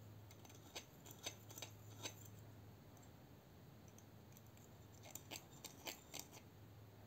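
Faint light metallic clicks in two short clusters as a knife blade and its pivot washer are handled and touched with the steel needle tip of an oil pen.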